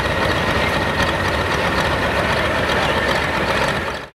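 John Deere hot farm pulling tractor's 466 cubic-inch diesel engine idling steadily and loud, with a constant high whine over it; the sound cuts off just before the end.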